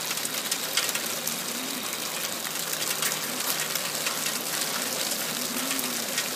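Small hail falling on a wooden deck and lawn: a dense steady hiss peppered with many sharp little ticks of pellets striking the boards.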